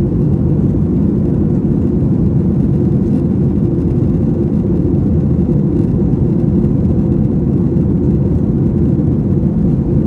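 Boeing 737-800 in flight, heard inside the passenger cabin: a steady, deep rush of jet-engine and airflow noise with no change.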